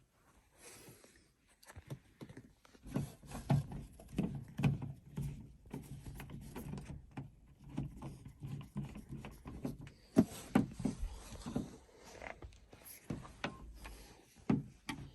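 A light-switch wall plate being fitted: irregular small clicks, taps and knocks as the plate and its screws are handled and fastened over the switch, with a few louder knocks in two clusters.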